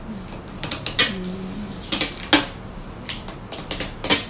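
White packing tape being pulled off and pressed onto a cardboard box by hand: a handful of short, sharp noises, the loudest about a second in, twice around two seconds in, and near the end.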